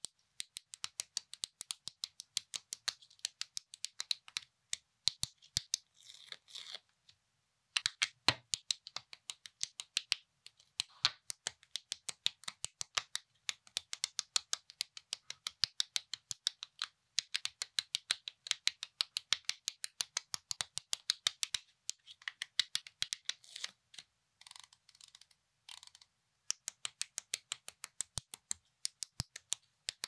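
LEGO plastic bricks being snapped and pressed together by hand, a quick run of sharp clicks, several a second. Twice it pauses briefly for softer plastic rubbing as pieces are handled.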